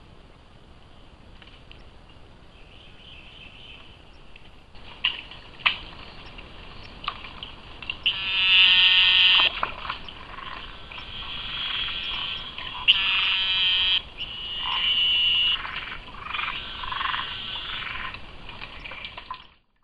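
A chorus of frogs calling, faint at first, then louder with repeated buzzy calls about a second long, the loudest around the middle. There are two sharp clicks about five seconds in, and the sound cuts off abruptly near the end.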